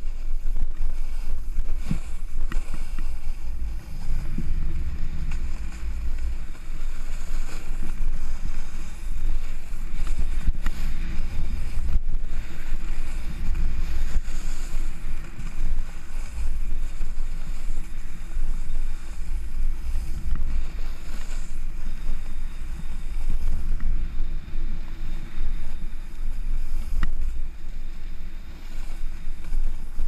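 Wind rumbling on the microphone of a pole-mounted action camera as a snowboard slides down a groomed slope, with the board scraping over the snow.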